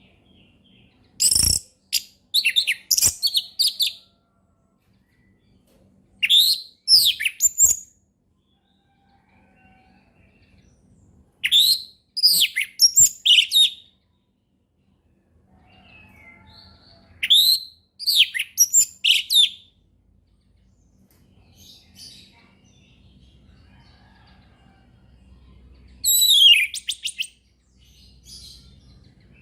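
Orange-headed thrush singing in the loud, clear 'ngeplong' style. Five phrases of rapid, sweeping high whistled notes, each lasting one and a half to three seconds, come with pauses of a few seconds between them.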